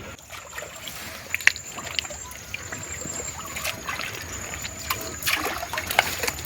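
Shallow river water trickling and splashing as people wade and work fishing nets in it, with scattered small splashes and drips, a cluster of them about five seconds in.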